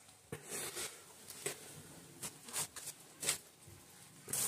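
Scattered light clicks and taps of hands fitting a new oil seal into a motorcycle engine's aluminium crankcase, about eight in all.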